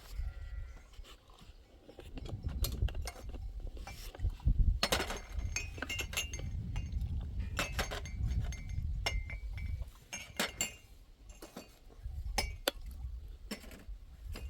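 Irregular clinks and clatter, some briefly ringing, over a low rumble.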